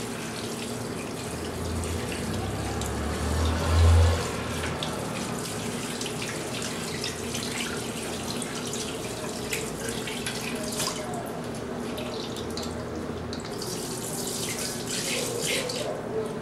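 Water spraying steadily from a handheld sink sprayer onto wet hair and splashing into a wash basin. A low thump comes about four seconds in.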